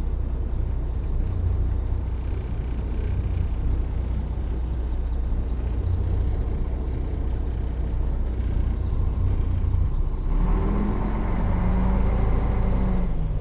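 Heavy vehicle engine running with a steady low rumble. About ten seconds in it revs up under load, its pitch rising and then sinking back, and it settles down again near the end.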